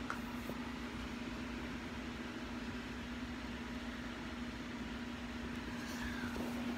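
Wall air-conditioner unit running: a steady hum with a constant low tone over an even fan hiss.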